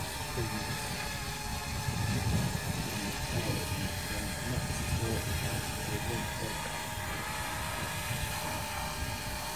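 Parrot Bebop 2 quadcopter's motors and propellers humming steadily in flight, a constant multi-tone whine, with gusty wind rumbling on the microphone.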